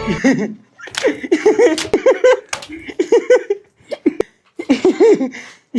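People laughing in short bursts, broken by a few sharp slaps or smacks.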